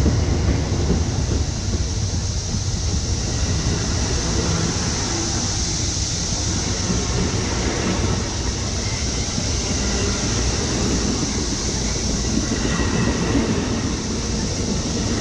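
Amtrak Superliner bilevel passenger cars rolling past at close range: a steady, continuous noise of steel wheels running on the rails, heavy in the low end.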